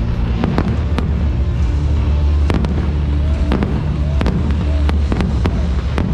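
Aerial fireworks shells bursting: about a dozen sharp bangs and cracks at irregular intervals.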